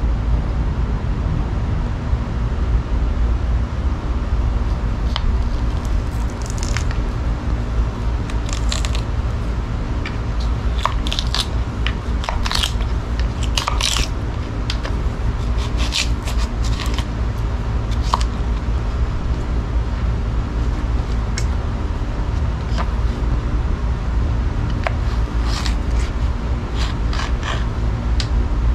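Hollow-ground blade of a Jungle King knife slicing into a raw potato: scattered short crisp scrapes and crunching cuts, busiest in the middle and again near the end, over a steady low rumble.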